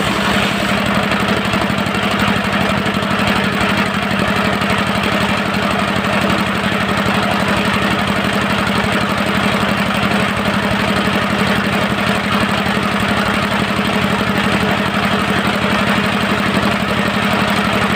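Dongfeng diesel engine of a portable circular-saw sawmill running steadily, with a fast, even pulse and no change in speed.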